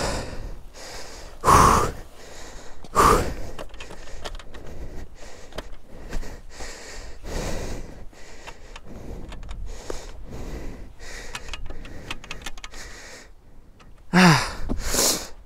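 A rider's heavy breathing: repeated breaths, with two loud exhales a few seconds in and a short falling grunt near the end.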